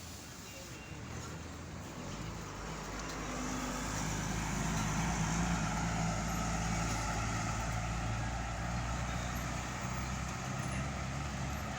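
A motor vehicle's engine running close by over road noise. It grows louder over the first four or five seconds and then holds steady.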